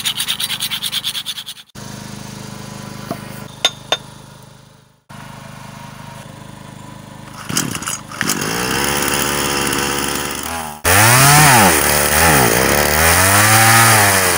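A small engine heard in several abruptly cut segments, revving up and down over and over in the second half and loudest after a cut about eleven seconds in.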